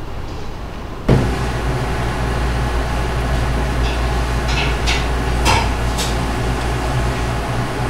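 Steady low hum of cooling machinery, starting abruptly about a second in, with a few light clicks in the middle.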